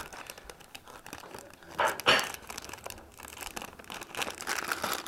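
Plastic Lego parts bags crinkling and rustling as hands rummage through them, with a louder crinkle about two seconds in.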